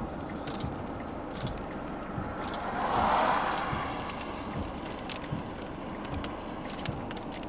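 Steady road and wind noise inside a moving car, with scattered light taps and knocks on the windshield as the wipers sweep. About three seconds in, an oncoming vehicle passes in a whoosh that swells and fades.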